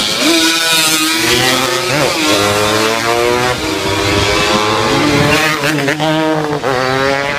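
Classic racing motorcycles passing at full throttle. The engine note climbs and drops back at each upshift, several times over.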